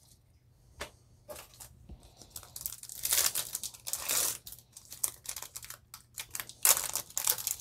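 Hands tearing open a foil Yu-Gi-Oh booster pack, the foil wrapper crinkling and ripping in several bursts. The tearing is loudest about three to four seconds in and again near the end.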